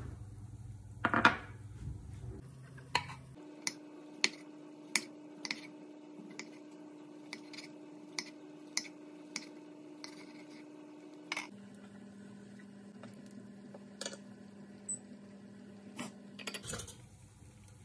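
A button mushroom sliced with a kitchen knife on a wooden cutting board: a run of sharp chops about every half second to second. Before the chops, about a second in, there is a louder clatter as a ceramic plate is set down. Near the end come a few taps of wooden chopsticks turning spring rolls in a frying pan, over a faint steady hum.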